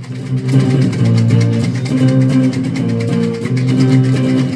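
Guitar playing a blues accompaniment alone between sung lines, with steady low notes under an even rhythm.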